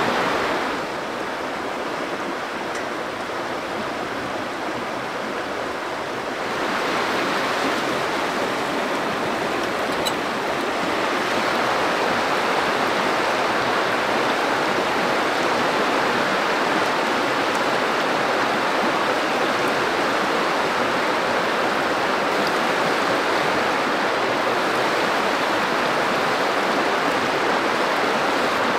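River water flowing over a shallow, stony bed: a steady rushing that drops a little about a second in and grows again after about six seconds.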